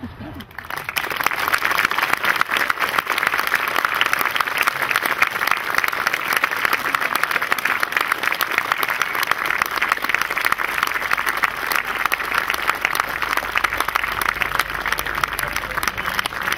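Audience applauding, the clapping starting about a second in and then going on steadily.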